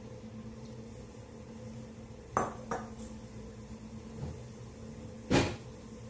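Kitchen cookware knocking and clinking: two light clinks in quick succession about two and a half seconds in, then a single louder knock near the end, over a steady low hum.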